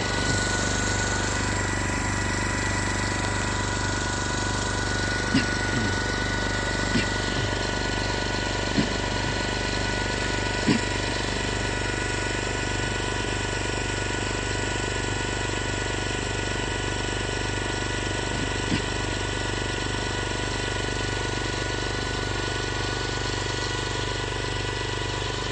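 Engine of a hose-fed high-volume herbicide spray rig running at a steady speed, driving the pump that feeds the spray wand. A few short sharp clicks sound through it.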